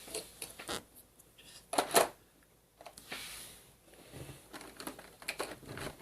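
Plastic board-game miniatures and their plastic packaging being handled: scattered light clicks and rattles, with two louder knocks about two seconds in.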